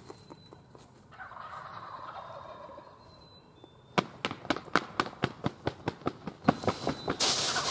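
Wild turkey gobblers gobbling from the roost. From about four seconds in there is a quick run of sharp taps, and a loud hiss starts near the end.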